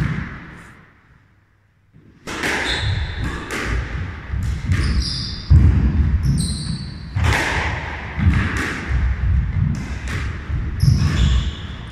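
A squash rally: the ball thuds repeatedly off rackets and walls, with short high squeaks from shoes on the court floor.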